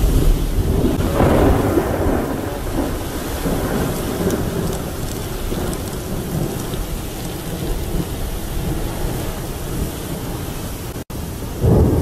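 Heavy rainstorm with strong wind: a steady rush of rain over a deep low rumble, swelling about a second in and again near the end.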